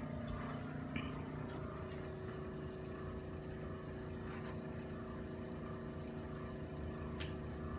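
Steady machine hum with several steady tones, its pitch content shifting slightly about one and a half seconds in, with a few faint clicks.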